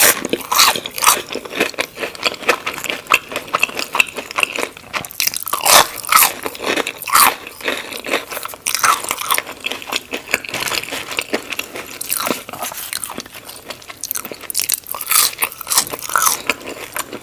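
Close-miked eating: repeated crisp crunching bites and chewing of crunchy food, in an irregular run of sharp crackles.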